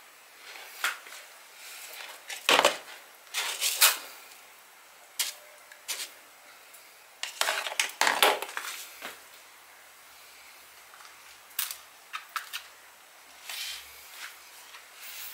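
A kitten scratching and shuffling in granular cat litter in a plastic tub: irregular gritty scrapes in short bursts, the loudest two clusters about a fifth and about half way through.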